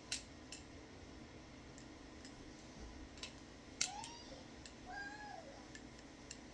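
Balisong trainer being flipped: scattered light metallic clicks as the handles and blade swing and knock together, the loudest about four seconds in.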